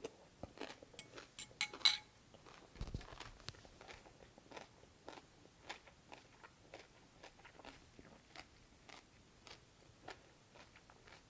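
Close-miked chewing of crisp cucumber from cold cucumber soup: sharp crunches loudest in the first two seconds, then softer, even chewing clicks. A dull low thump about three seconds in.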